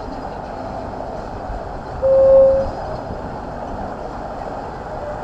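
A boat's engine and water running steadily, and about two seconds in a single short horn toot, one steady note.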